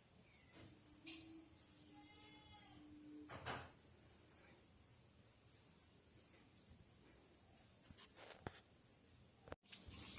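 Faint cricket chirping: short, high chirps repeating evenly about three times a second, with a few soft knocks.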